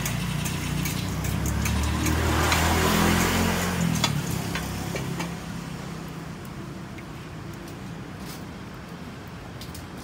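A motor vehicle's engine passing on the street, loudest about three seconds in and fading away by about six seconds, with scattered light clicks over a steady street background.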